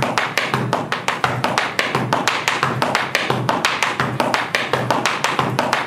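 Tap shoes striking a hard studio floor in tap dancing: a rapid, even stream of crisp metallic taps, about seven a second, with heavier heel drops among them.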